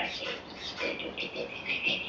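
Cartoon-style mouse voice from the automaton's soundtrack: a run of short, high squeaks and chatters, ending in a longer held squeak near the end.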